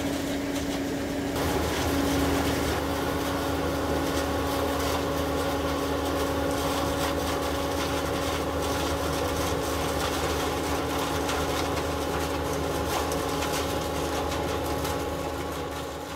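John Deere 1450 CWS combine harvester running steadily as it harvests corn with its six-row Olimac Drago corn header: a steady engine and machinery hum.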